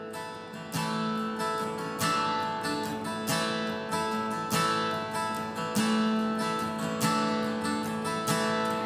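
Acoustic guitar strumming chords in a steady rhythm, the instrumental intro of a worship song with no singing yet.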